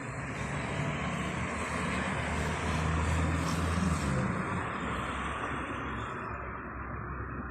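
An engine passing by, rising in loudness to a peak about halfway through, then fading away.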